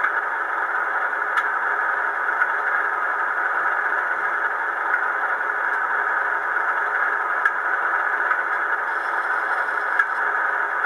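Sound-fitted model Class 37 diesel locomotive standing still, its loudspeaker playing a steady diesel engine idle, with a few faint clicks.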